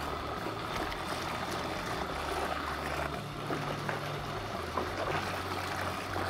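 Soapy bathwater sloshing and squishing as hands knead and press soaked motorcycle textile gear down into the tub, with a faint low hum underneath.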